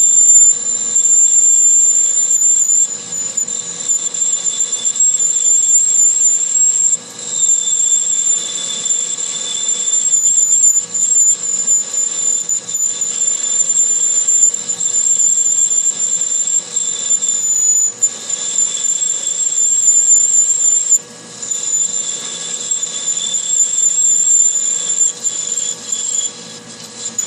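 A 1-inch twist drill in a metal lathe squealing as it cuts into stainless steel under liquid coolant. The squeal is steady and high-pitched, wavers slightly in pitch, and dips briefly a few times.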